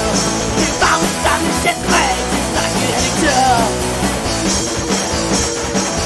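Studio recording of a punk rock song: a full band playing, with drums hitting in a steady beat under sustained guitar chords.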